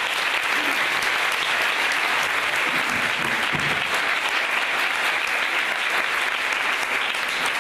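An audience of schoolchildren and guests applauding steadily, a dense patter of many hands clapping, after a speech ends.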